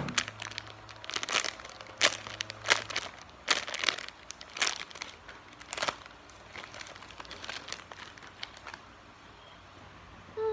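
Plastic packaging crinkling as it is handled, in quick irregular crackles that thin out after about six seconds.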